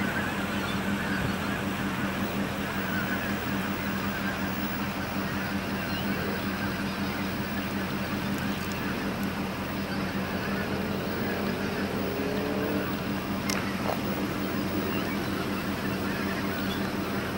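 A huge flock of geese calling all at once in a dense, continuous din, over a steady low hum. There is one brief click near the end.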